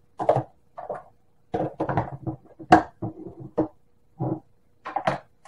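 Kitchen containers and a plastic measuring scoop being handled and set down on a wooden counter: a string of short knocks and clatters, some with a brief ring.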